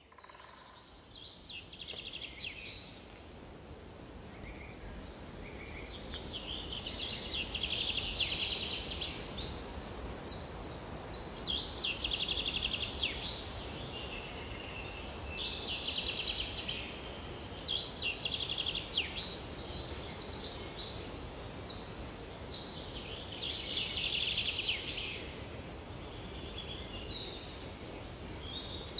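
Birds chirping in repeated short trilling phrases every few seconds, over a steady low background hum of outdoor noise.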